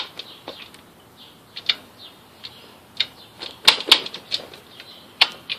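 Irregular sharp mechanical clicks and knocks, about eight in all, the loudest pair near the middle, from the Suzuki GN400 motorcycle being shifted into neutral and readied for a kickstart. The engine is not running.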